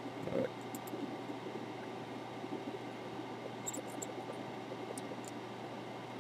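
Steady hum and hiss of a bench fume extractor's fan, with a few faint ticks.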